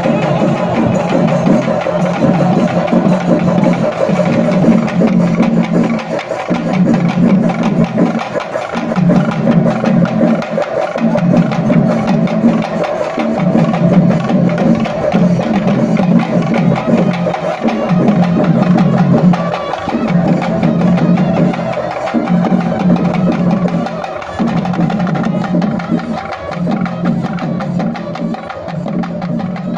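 Procession percussion music: drums beaten with sticks in a fast, steady rhythm, with a strong low sound that breaks off briefly about every two seconds.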